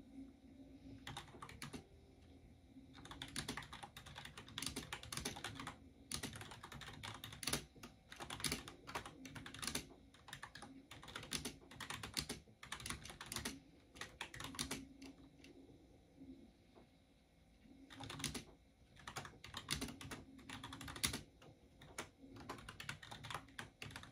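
Typing on a computer keyboard: quick runs of key clicks in bursts, with a short pause about two-thirds of the way through.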